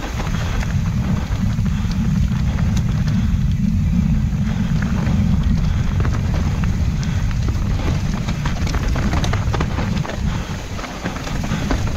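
Wind buffeting the microphone of a riding mountain biker, with tyres rolling over dirt and many small clicks and rattles from the bike.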